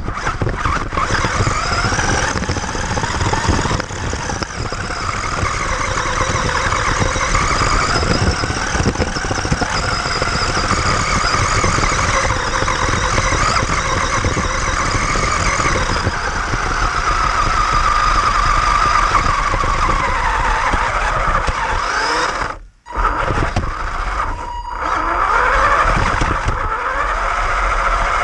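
Radio-controlled buggy's motor whining as it drives, the pitch rising and falling with its speed, over a steady rushing noise, heard from a camera mounted on the car. The sound drops out sharply twice, briefly, a few seconds before the end.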